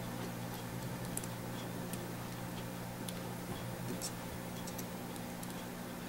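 Faint, irregular small metallic ticks as a 1/16-inch Allen key turns the over-travel adjustment screw in a Ruger Mark IV pistol's trigger a fraction of a turn at a time, over a steady low hum.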